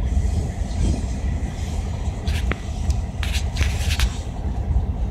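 Diesel locomotive engine idling close by: a steady low rumble, with a few sharp clacks about halfway through.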